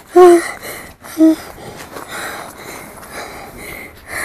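Two short, loud vocal grunts in the first second and a half, then a person breathing hard.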